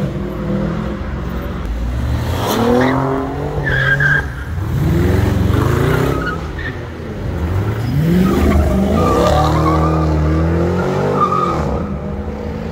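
Cars accelerating hard, the engine pitch rising three times in succession as they pull away, with tire squeal about four seconds in and again for a couple of seconds later on.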